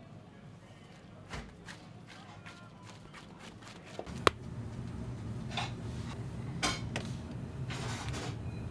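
Kitchen work sounds: scattered knocks and clicks of utensils and dishes, with one sharp click about four seconds in. A steady low hum grows louder at the same point and keeps on.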